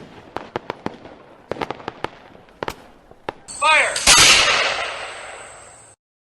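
Fireworks going off: a quick run of sharp crackling bangs, then a little over three and a half seconds in a louder hissing burst that fades away before the sound cuts off near the end.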